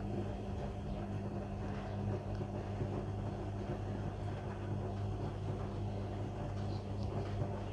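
Beko washing machine running, with a steady low hum and a noisy mechanical drone over it.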